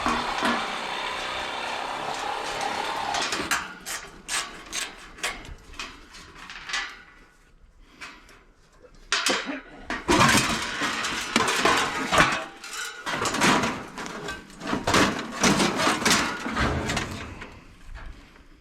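A tool runs with a steady grinding noise for about the first three and a half seconds. Then comes a long run of scattered metal clinks, knocks and clatters as parts of an air conditioner are pulled apart and handled for scrap.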